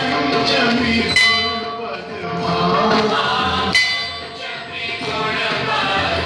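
Temple bell struck twice, about two and a half seconds apart, each strike ringing on, over voices singing.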